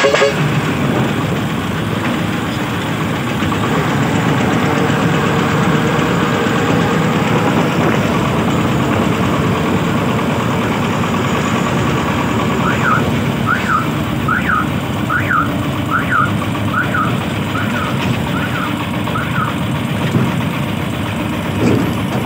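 Farm truck's engine running steadily. Partway through, a short chirping tone repeats about nine times, a little under once a second.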